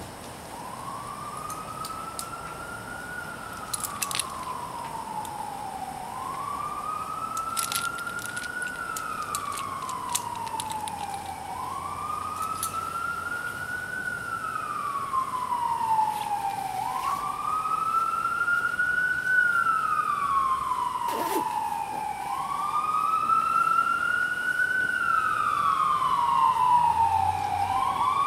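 Emergency vehicle siren in a slow wail, each rise and fall lasting about five and a half seconds, five times over, growing steadily louder as it approaches.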